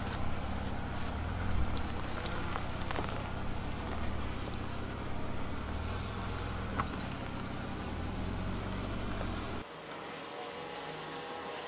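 Ford Ranger Raptor's engine running steadily at low revs as the truck crawls over rocks on a dirt trail, with scattered sharp clicks and crunches of stones under the tyres. Near the end the engine drone cuts off suddenly, leaving a quieter outdoor background.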